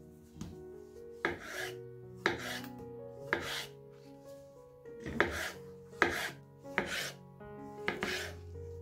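Seven short noisy strokes of hand food preparation in a kitchen, irregularly spaced, over soft background music with sustained notes.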